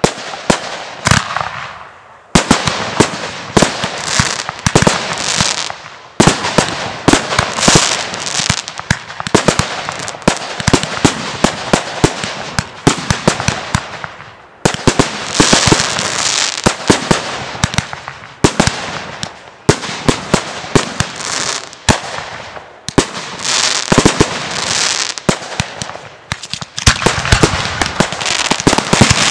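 Fireworks display: many sharp bangs of aerial shells and firecrackers over a crackling hiss, with short lulls about two seconds in and about halfway through.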